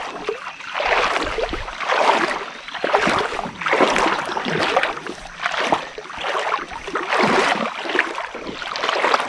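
Water splashing and sloshing around a kayak, swelling and fading about once a second.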